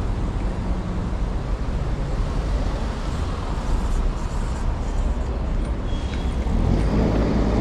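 City street traffic: a steady rumble of passing vehicles, with a brief high squeal about six seconds in and the low engine rumble growing louder near the end.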